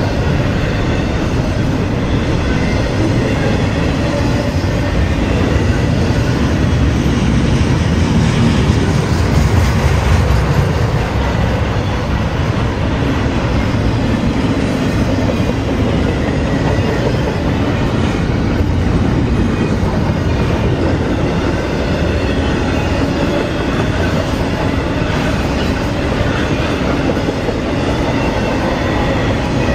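CSX double-stack intermodal freight train rolling past: a steady, loud noise of steel wheels running on the rails as the loaded container well cars go by.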